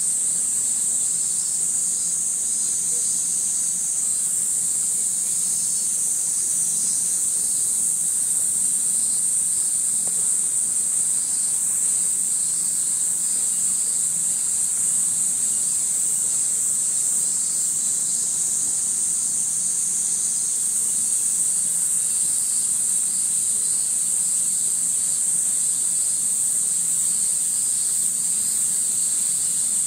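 Steady, high-pitched chorus of summer cicadas buzzing without a break.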